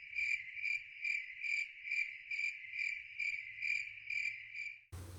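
Cricket chirping sound effect: a steady high trill pulsing about twice a second, starting and cutting off abruptly. This is the comedic 'crickets' awkward-silence gag dropped in after a joke.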